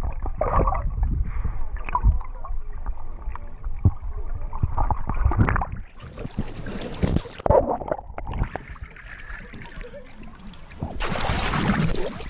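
Water sloshing and gurgling against a GoPro on a snorkel mask while the wearer swims, with irregular knocks and rumbles. The sound turns muffled at times and there is a loud stretch of splashing near the end.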